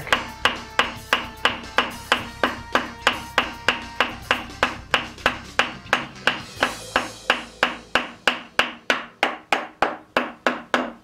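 Steady, rapid hammer blows on a metal lathe part, about four a second, each with a short metallic ring, tapping the part loose during disassembly.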